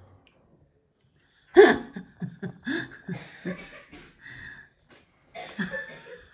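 A person laughing in a run of short repeated pulses, starting about one and a half seconds in. After a brief pause, more laughter comes near the end.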